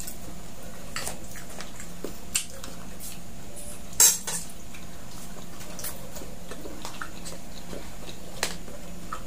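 Spoons and forks clinking against plates and plastic food containers while eating: scattered light clicks, with one louder clatter about four seconds in, over a steady low hum.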